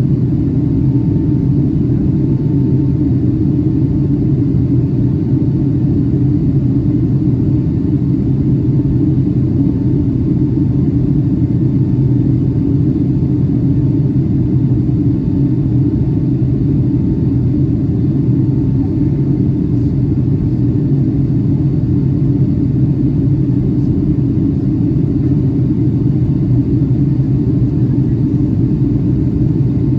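Steady cabin noise inside a Boeing 757-300 airliner in flight: a deep, even rumble of engines and airflow with no change in level.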